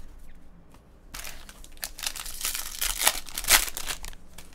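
Foil wrapper of a Bowman Draft jumbo pack of trading cards being torn open and crinkled. It starts about a second in with a sudden loud crackle of the foil that goes on for about three seconds.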